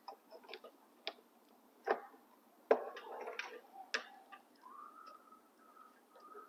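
Metal clicks and clinks from a #40 steel roller chain being handled and fitted over sprockets: a few separate sharp clicks about a second apart, with a short run of rattling clinks around the middle.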